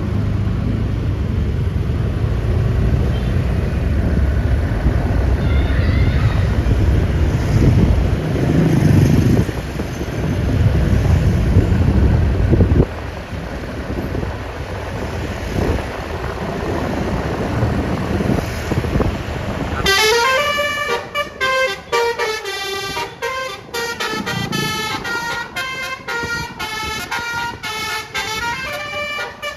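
A heavy low rumble from a large vehicle engine, which drops off suddenly about 13 seconds in. About two-thirds of the way through, a multi-tone 'telolet' bus horn (basuri) starts playing a quick, choppy 'dut dut' melody of short notes.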